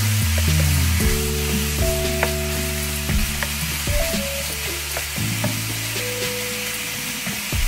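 Diced pork shoulder sizzling as it fries in a pan, stirred with a wooden spatula that scrapes and taps now and then. Background music with low sustained notes plays underneath.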